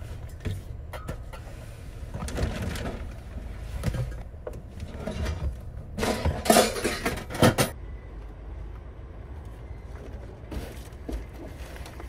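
Gear being shifted around in an SUV's back seat: plastic cases and bins knocking and scraping, loudest in a cluster of sharp knocks about six to seven and a half seconds in, over a low steady rumble.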